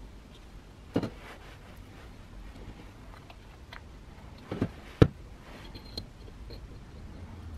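A few knocks and clicks of metal parts being handled and set down on a cutting mat: one about a second in, two close together around five seconds in, the second being the loudest, and a lighter tap about a second later.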